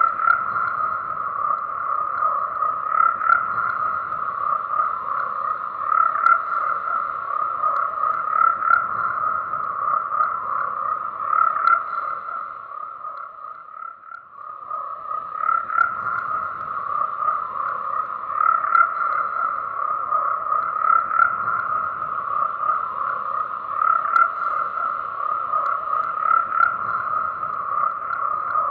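A dense chorus of frogs calling without a break. It thins briefly about halfway through, then picks up again.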